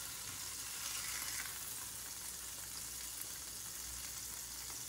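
Steak and chicken sausages sizzling in a hot Neoflam nonstick pan, a steady hiss, as the steak's fatty edge is held against the pan with tongs to render the fat.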